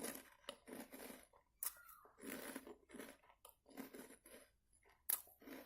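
Soft, irregular crackling and rustling of thin plastic snack wrappers being handled, in about a dozen short bursts.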